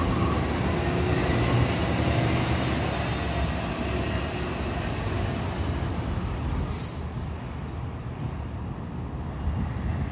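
Hybrid-electric city bus pulling away and driving off, its running loudest at first and fading as it leaves, with a high steady whine for the first couple of seconds. A short, sharp hiss about seven seconds in.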